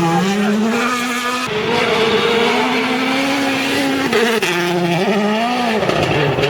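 Rally car engine revving hard, its pitch climbing and then dropping back several times with gear changes and throttle lifts.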